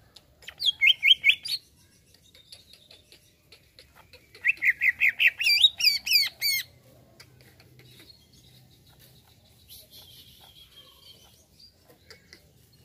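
Greater green leafbird (cucak ijo) singing: two loud runs of rapid repeated notes, a short one about half a second in and a longer one from about four and a half seconds, the second rising and then turning into looping, falling notes. Faint chips come between and after.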